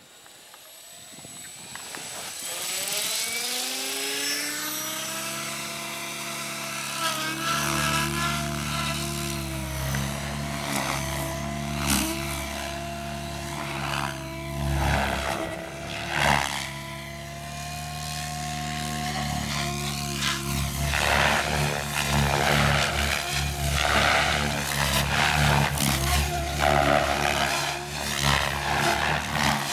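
Agile 7.2 RC helicopter spooling up from rest, its rotor and motor whine rising in pitch over the first several seconds, then running at steady head speed with whooshing blade noise. The sound grows louder and rougher over the last third.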